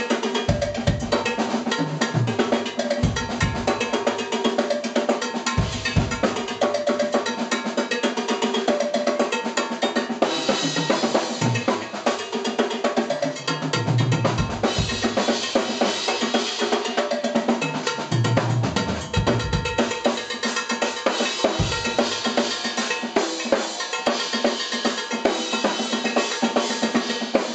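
Live jazz-fusion band playing, with a busy drum kit and hand percussion to the fore, hits coming thick and fast over sustained pitched notes and a bass line.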